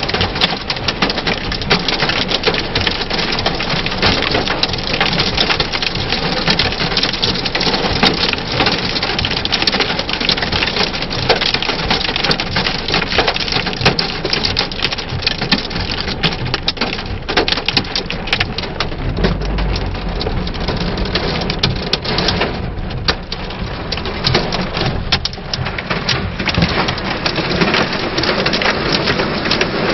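Hail and rain pelting a car's roof and windscreen, heard from inside the car: a dense, steady clatter of countless small hits. A brief low rumble comes about two-thirds of the way through.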